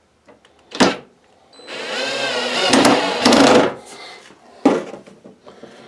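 Cordless drill driving a 3/8-inch sheet-metal screw into galvanized double-wall (Type B) gas vent pipe. The drill runs for about two seconds, with a sharp knock about a second before and another one after.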